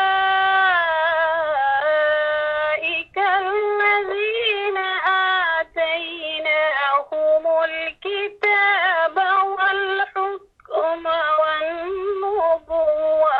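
Unaccompanied melodic Quran recitation in Arabic by a single high voice: long held notes with ornamented turns, broken by short breaths, stopping suddenly near the end.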